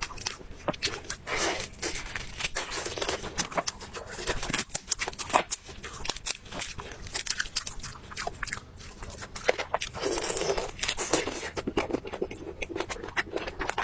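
Crunching and chewing of crisp food: many sharp bites, each followed by chewing, with brief tearing sounds in between.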